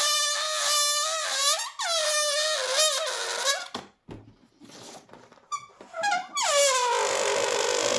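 Balloon deflating, air squealing out through its stretched neck in a loud, wavering squeal. It breaks off about halfway through, gives a short squeak, then starts again, sliding down in pitch.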